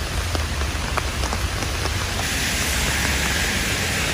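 Steady rain falling, an even hiss with a few separate drops striking close by. The hiss turns brighter a little past halfway through.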